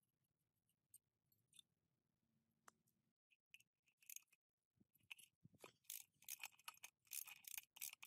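Faint ratchet wrench clicking in quick runs as it works the centre nut on a small two-stroke minibike engine's flywheel. A few light metal clicks and taps of hand work come before it.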